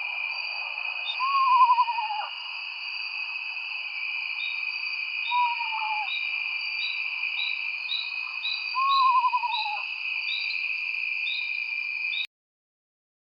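Owl calls: three descending, quavering whinnies, each about a second long. Behind them runs a steady high ringing background with short chirps repeating about twice a second. The recording cuts off abruptly near the end.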